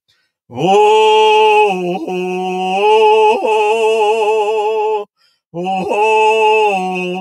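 A single voice chanting a sung prayer in long held notes with a wavering vibrato, in two phrases with a short pause for breath about five seconds in.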